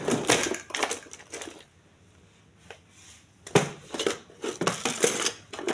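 Plastic handling noises from a laptop and its removed battery being moved about on a bench: scraping, rustling and light clicks in two busy stretches, with a quiet gap and a single click in the middle.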